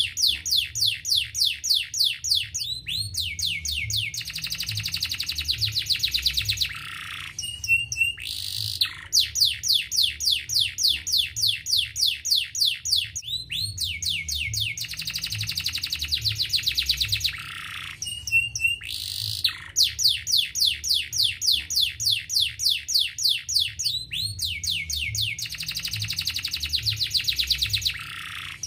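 Domestic canary singing: fast trills of quick descending notes, about six a second, each run followed by a buzzy rolling phrase and a short break. The same song comes round about every ten seconds.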